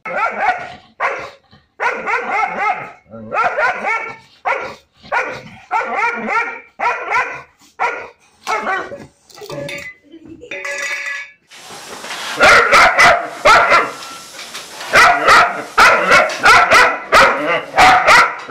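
German shepherd barking repeatedly at a cat in a steady string of short barks. From about two-thirds in the barks come louder and faster, about two a second, over a steady hiss.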